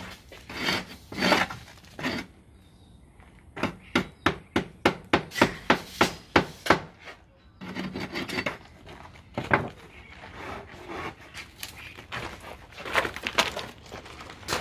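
Hand rasp scraping the edge of a 50 mm AAC (autoclaved aerated concrete) panel in repeated strokes, with pauses. The middle stretch is a quick, even run of about three strokes a second.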